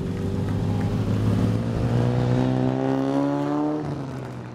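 Engine of a vintage production sports car running close by, its note climbing over a couple of seconds and then stopping near the end.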